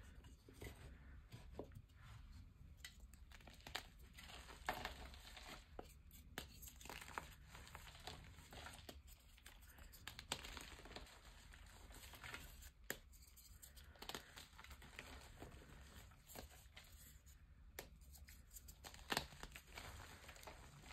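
Quiet, dry crunching and crackling as a block of reformed gym chalk is pressed by hand and breaks apart into crumbling powder, with scattered sharp snaps and a louder crack near the end.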